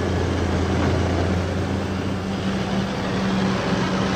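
Heavy equipment engine running with a steady drone.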